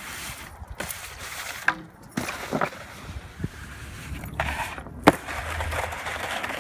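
Snowskate sliding and scraping over thin snow, with a string of sharp clacks and knocks as the board lands and hits the ground, the loudest about five seconds in.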